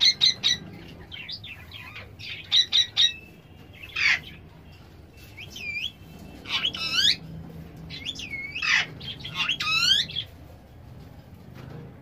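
Indian ringneck parakeets squawking: short, high-pitched calls in quick clusters of two to four, repeated every second or two, stopping a couple of seconds before the end.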